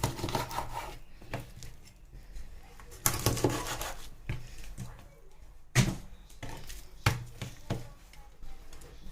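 Knife cutting a raw chicken leg quarter apart at the joint on a cutting board: scraping and rustling strokes through the meat, with a few sharp knocks of the blade against the board.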